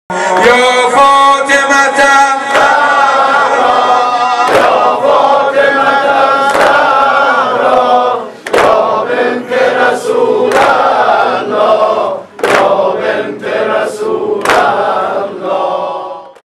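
A group of men chanting a mourning lament together in unison, punctuated by sharp chest-beating strikes made together. The strikes come about every two seconds at first and quicken to about two a second in the second half.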